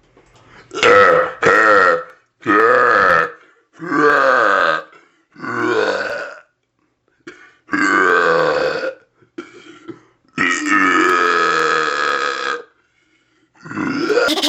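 A person belching over and over, about eight loud belches in a row with short gaps between them. One quieter belch comes just before the last, which is drawn out for about two seconds.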